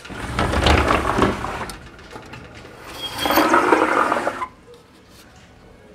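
A click, then two stretches of rushing, scraping noise as wooden louvred window shutters are pushed open by hand.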